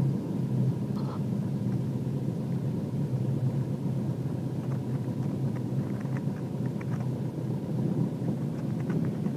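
Light single-engine plane's piston engine idling with the propeller turning, heard inside the cockpit during the landing roll-out: a steady low drone. A few faint clicks come in from about five seconds in.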